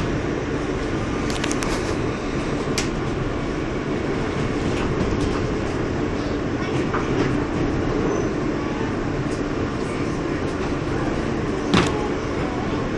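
Subway car running along the track, heard from inside the car: a steady rumble with a few sharp clicks and knocks, the loudest about twelve seconds in.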